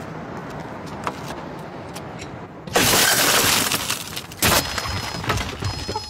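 Glass smashing: about three seconds in, a sudden loud crash of breaking glass rings on for over a second, followed by a second sharp hit about a second and a half later.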